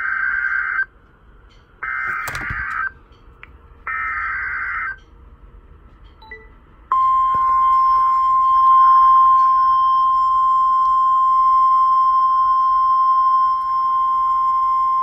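Emergency Alert System signal on NOAA Weather Radio: three buzzy one-second bursts of SAME digital header data, about a second apart, with a crackle during the second. About seven seconds in, the steady 1050 Hz weather radio warning alarm tone starts and holds, announcing the warning that follows.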